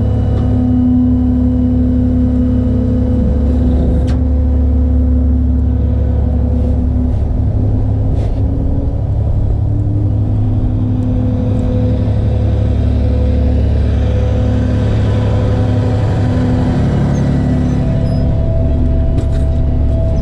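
Tow truck engine running with a steady low drone, its pitch shifting slightly in the last few seconds.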